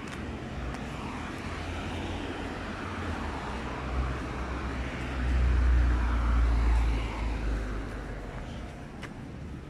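A passing vehicle's low rumble over steady street noise, swelling to its loudest about five to seven seconds in and then fading away.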